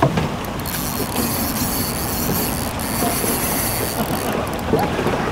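Spinning reel being cranked against a hooked fish, a steady mechanical clatter with a hiss over it.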